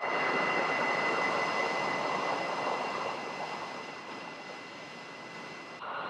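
Jet engines of taxiing F-16 fighters at idle: a steady high-pitched whine over a broad rush. It gets a little quieter after about three seconds and changes abruptly near the end.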